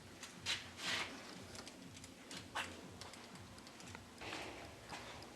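A few short clicks and scrapes of workpieces and tools being handled at a workbench, over a faint low hum.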